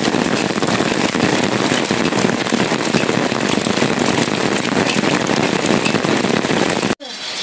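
Steady, heavy rain pattering on wet ground and surfaces, a dense crackling patter that breaks off abruptly near the end.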